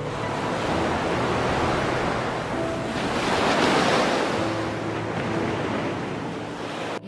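A rushing, surf-like noise that swells about halfway through and eases off again, with soft background music notes underneath.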